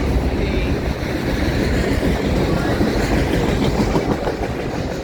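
Loaded autorack cars of a long freight train rolling past at close range, their steel wheels running on the rails in a steady, continuous rumble.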